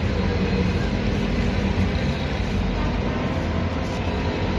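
A steady, low rumbling noise with no clear rhythm or separate strokes.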